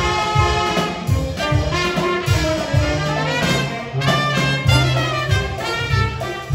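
Live brass band playing an upbeat tune: trumpet, saxophone and trombone over a small drum kit keeping a steady beat of about two a second.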